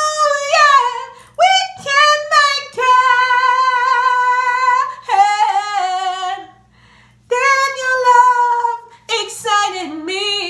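A woman singing solo in a soul/R&B style, holding long notes with vibrato and sliding through wordless runs, with a short breath pause about two-thirds of the way through.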